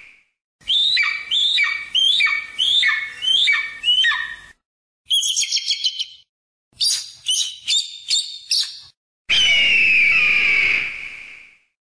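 Bird calls: a run of about seven short piping calls, roughly two a second, then a fast high trill, another quick run of calls, and a long, wavering, descending scream near the end.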